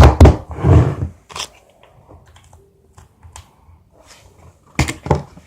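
Handling noises close to the microphone: a few loud thumps in the first second, scattered small clicks, then two more thumps near the end.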